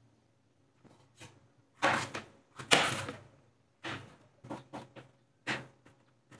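Kitchen knife cutting through green bell peppers and knocking on a plastic tray: a series of irregular cuts and knocks. The loudest come about two and three seconds in, then shorter, quicker ones follow.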